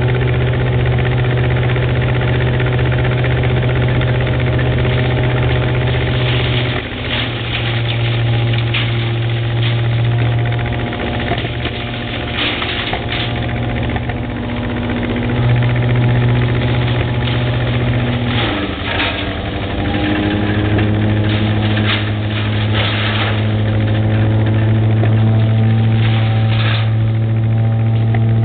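Giant Vac towable leaf loader's 30 hp four-cylinder air-cooled Wisconsin engine running steadily, driving the loader's fan. Its note dips and recovers several times, most clearly about two-thirds of the way through, and there are scattered short rattles in the middle part.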